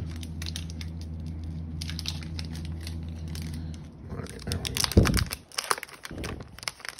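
A steady low hum, then from about four seconds in a foil trading-card pack is torn open and its wrapper crinkles and crackles, with one loud thump about five seconds in.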